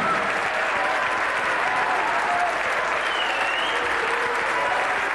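Theatre audience applauding steadily as the performers take their bows.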